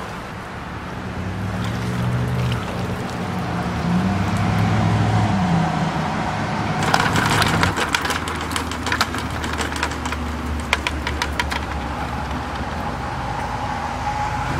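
A wire-mesh crayfish trap is shaken over a plastic bucket, and crayfish and wire clatter into it as a quick run of clicks and rattles, from about seven to twelve seconds in. Under it runs a low engine drone from passing road traffic, loudest in the first half.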